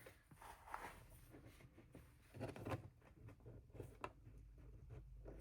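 Near silence with a few faint taps and short rustles from hands handling a small doll and its pipe-cleaner frame.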